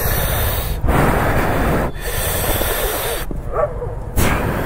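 A person's heavy breathing close to the microphone: long, noisy breaths, over a steady low rumble.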